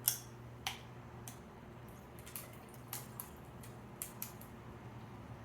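A few faint, scattered clicks and light taps, about eight in all, the first the loudest, over a faint steady low hum.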